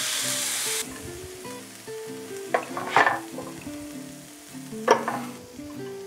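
Cauliflower rice sizzling in a frying pan, a steady hiss that cuts off suddenly under a second in. Then light background music, with a few short clinks of a serving spoon on a plate.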